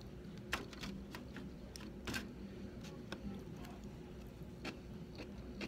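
Faint eating sounds: scattered small sharp clicks and soft wet mouth noises as a sushi roll is lifted with wooden chopsticks, bitten and chewed, over a low steady room hum.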